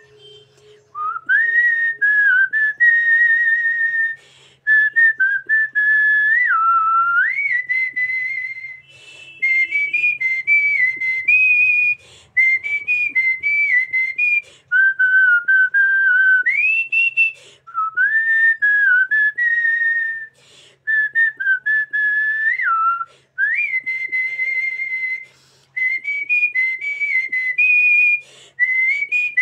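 A woman whistling a song melody through pursed lips: a single clear tone that steps up and down in phrases, with short breaks for breath and a slight waver on the held notes.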